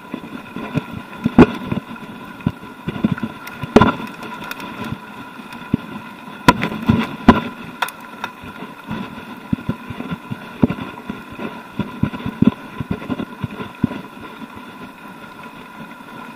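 Mountain bike rolling over loose gravel, with irregular sharp knocks and rattles as the bike jolts over stones, heard through a camera mounted on the bike or rider. A steady thin whine runs underneath.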